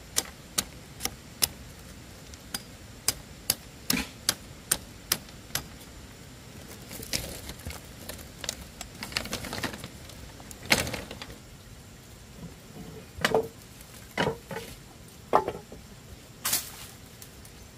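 Sharp taps about twice a second as a hammer knocks on split, flattened bamboo boards. After about five seconds they give way to bamboo slats scraping and clattering, with a loud knock about eleven seconds in and a few more knocks of bamboo pieces being set down near the end.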